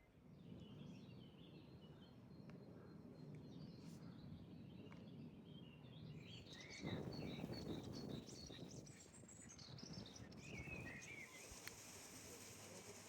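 Small birds chirping faintly in a few short spells of calls, near the start, in the middle and again near the end, over a soft, low background rumble of outdoor noise.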